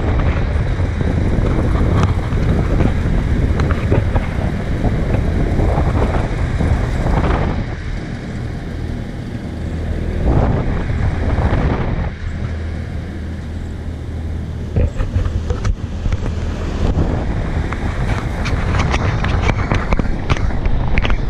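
Wind buffeting the microphone over a steady low engine drone, as from a moving vehicle, rising and falling in gusts.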